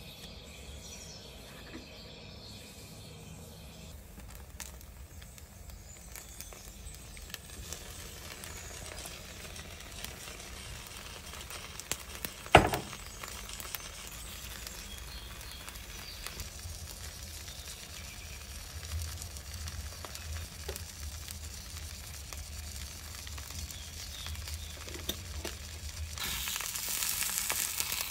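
Eggplant-and-batter wrap topped with diced avocado and tomato sizzling quietly in a nonstick frying pan, with one sharp knock about halfway through. Near the end the sizzle turns louder.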